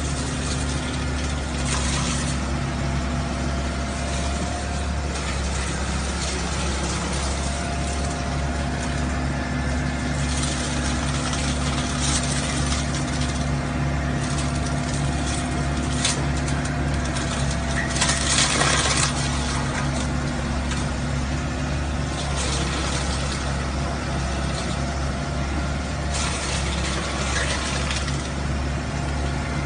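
Excavator's diesel engine running steadily, powering a hydraulic wood chipper attachment, with short bursts of harsher noise now and then, the loudest about two-thirds of the way through.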